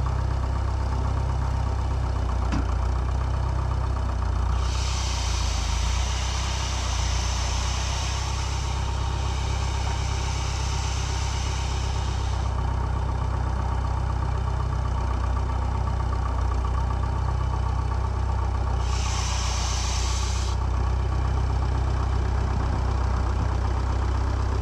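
Vintage farm tractor's engine running steadily at low revs. A high hissing squeal from its power steering pump comes in about five seconds in for several seconds, then again briefly later on: the pump is worn and needs rebuilding.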